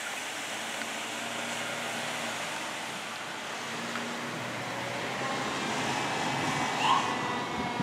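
Fire engine driving by on an emergency response, engine and road noise steady, with a short rising siren tone about seven seconds in.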